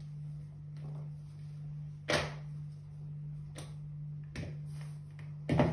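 Raw potato slices being picked up off a cloth and dropped into a bowl, with two louder soft knocks, about two seconds in and near the end, and a few fainter ones between. A steady low hum runs underneath.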